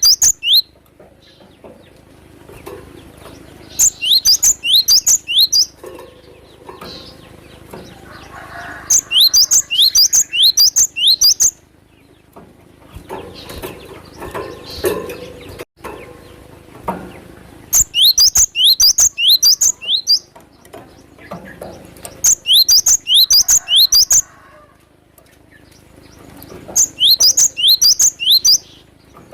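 Cinereous tit (gelatik batu) calling in loud bursts of rapid, sharp, high chirps. Each burst runs about two seconds, and they repeat every few seconds, about five times. Softer background sound fills the gaps between bursts.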